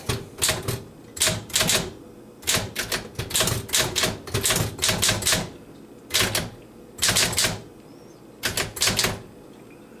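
Keys of a 1937 Smith-Corona manual typewriter being typed, the type bars striking the paper on the platen in quick irregular runs of sharp clacks with short pauses between. It is the first test typing after a cleaning and repair.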